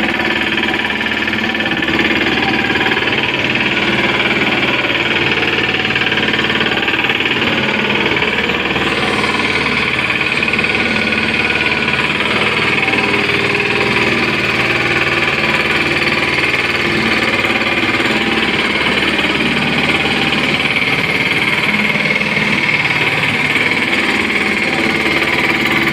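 Small ride-on vibratory tandem road roller's engine running steadily at an even pitch.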